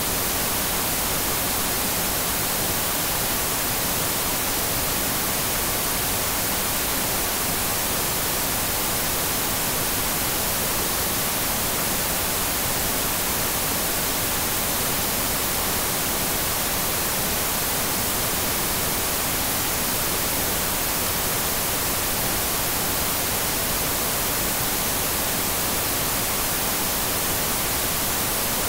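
Television static: a steady, bright hiss with no break or change.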